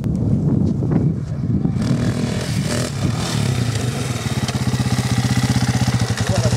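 Enduro dirt bike engine running as the bike rides along and passes close by, its note settling about halfway through into a steady, evenly pulsing beat at held throttle.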